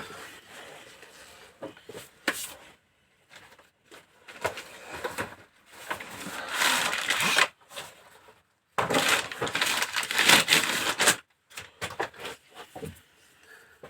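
Hand-work noises on engine parts: irregular scraping and rustling with scattered clicks and knocks, louder in two stretches in the middle.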